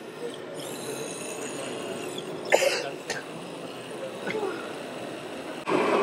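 Background noise of a crowded exhibition hall: a steady low murmur with faint high tones, a short sharp noise about two and a half seconds in, and the background suddenly louder near the end.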